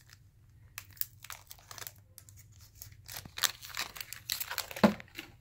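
Foil hockey-card pack wrapper crinkling and rustling in the hands, in short irregular crackles that grow denser and louder in the second half, with one sharper crackle near the end.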